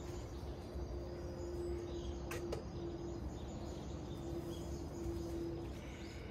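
Woodland ambience: faint bird chirps over low background noise, with a steady hum that breaks off near the end and two sharp clicks about two and a half seconds in.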